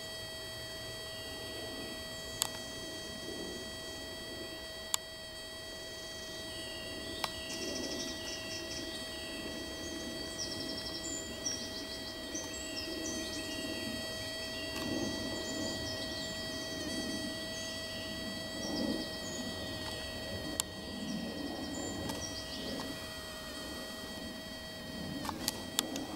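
A Syrphus hoverfly "singing" while it sits still with its wings folded: a steady, high-pitched whine held on one pitch with overtones. Faint bird chirps come and go in the background, and a few sharp clicks fall in the first half.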